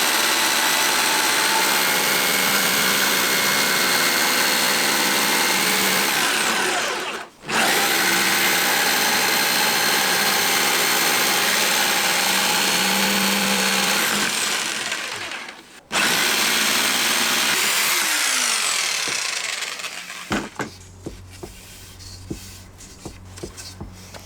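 Electric saw cutting a wooden floor plank to width in three runs, each a loud steady whine that winds down with falling pitch when the blade stops; after the last run winds down, a few light knocks.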